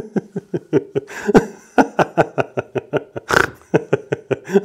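A man laughing in quick bursts of 'ha', about five a second, with one louder, breathier burst a little over three seconds in. It is deliberate laughter-yoga laughing.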